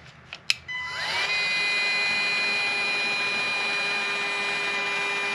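DeWalt cordless heat gun switched on, its fan spinning up about a second in, then running steadily with a rushing airflow and a high whine while it shrinks heat-shrink tubing over a crimped ring terminal. A couple of short clicks come just before it starts.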